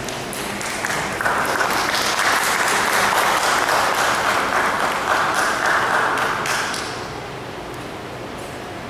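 Audience clapping, swelling about a second in and dying away after about seven seconds.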